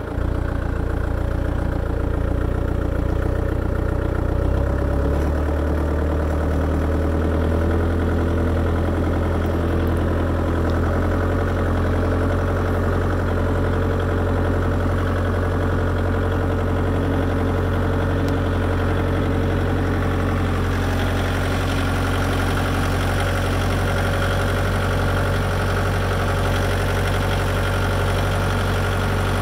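Ferrari Cromo K60 AR Rev compact tractor's engine running steadily at low speed, heard from the driver's seat; its note shifts slightly about five seconds in.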